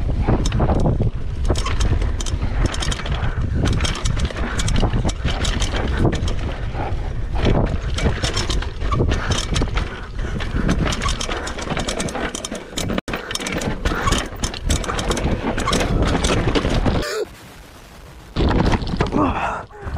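Downhill mountain bike ridden fast over rough trail: heavy wind buffeting the microphone over a constant clatter of the bike and tyres on dirt, with many sharp knocks from bumps. The noise drops away suddenly about three-quarters of the way through, then picks up again shortly before the end.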